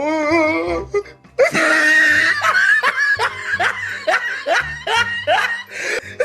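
Laughter over background music with a steady low beat.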